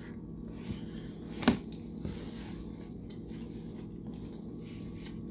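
Faint sounds of someone eating flaky food, with one sharp click or crunch about a second and a half in.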